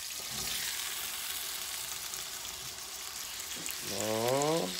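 Pot roast meat sizzling steadily as it sears in a hot pan. About four seconds in, a person makes a short vocal sound that rises in pitch.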